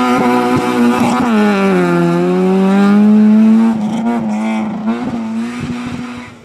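Rally car engine at high revs as the car accelerates away out of a hairpin. The pitch holds high, dips about a second in and climbs back, with a few short sharp cracks. It cuts off suddenly at the end.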